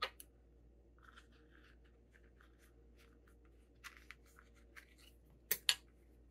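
Vinyl fabric being handled and pushed into shape by hand as a sewn pocket is turned right side out: faint scattered crinkles, rubs and ticks, with a sharp click at the start and two sharp clicks close together near the end, the loudest.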